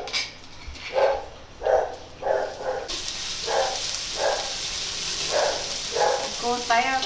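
Shallots, chili and belacan (shrimp paste) dropping into hot cooking oil, which starts sizzling abruptly about three seconds in and keeps sizzling steadily. A dog barks repeatedly, in short barks about every half-second to second.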